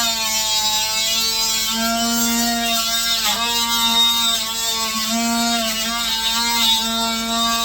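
Electric oscillating multi-tool running with a steady high-pitched buzz, its pitch dipping briefly a few times as the blade is pressed against the motor, most sharply about three seconds in; the blade is missing teeth and makes little headway.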